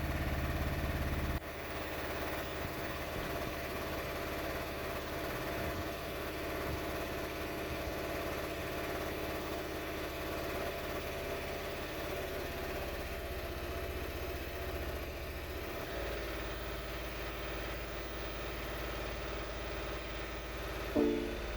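BMW i3 REx range-extender engine, a 647 cc two-cylinder, running unevenly and sputtering from a misfire that was traced to spark plugs needing replacement. Its sound changes abruptly about a second and a half in and again about two-thirds of the way through. A brief tone sounds near the end.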